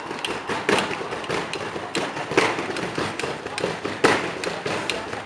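A run of sharp, irregular taps and knocks, several a second, with the loudest knocks a little past halfway.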